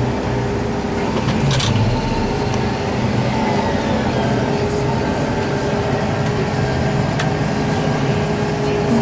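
New Holland T7-210 tractor's six-cylinder diesel engine running steadily under load while ploughing, heard from inside the cab. There are two brief clicks, one early and one about seven seconds in.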